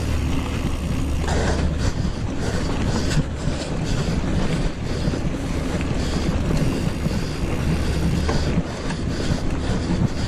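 Wind rumbling steadily on the microphone of a bike-mounted camera, over the hiss of a mountain bike's tyres rolling fast on loose gravel, with small scattered clicks.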